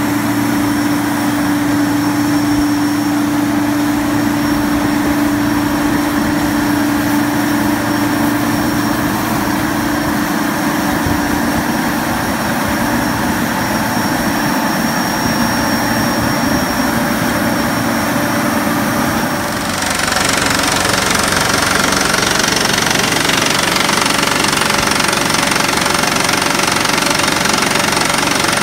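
Ingersoll Rand ECM-360 crawler rock drill's Cummins diesel engine running steadily. About twenty seconds in the sound jumps louder and brighter as the drill starts hammering into rock.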